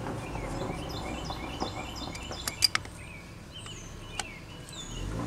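A songbird chirping over and over in quick short downward notes, with a low steady background hum. A few sharp metal clicks cut through, two close together a little past halfway and one more near the end, from the small gear puller being worked on the axle hub.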